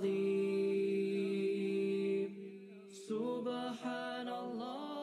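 A cappella vocal background music: a voice holds one long note, drops away a little after two seconds in, then comes back about three seconds in with a wavering melody.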